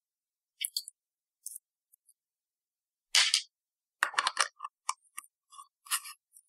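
Short metallic clicks and scrapes from the stainless-steel RBA base of a SubTank Mini V2 being handled and threaded onto an ohm meter's 510 connector. There is one louder scraping click about three seconds in, then a quick run of clicks and ticks.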